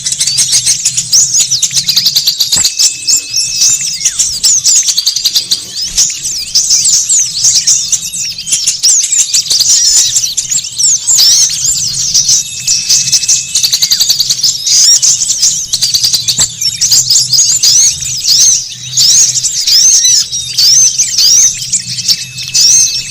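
Dense, noisy chorus of many small songbirds chirping and twittering rapidly without pause: a bird-luring call recording of small wild birds. A short, steady high whistle note comes back about every ten seconds, over a low steady hum.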